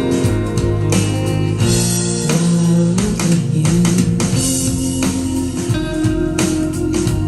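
Recorded music played back through Audio Phonic SE-04 bookshelf speakers, with their 6.5-inch carbon-fibre woofers and silk-dome tweeters, picked up by a phone: an instrumental passage led by guitar, without vocals.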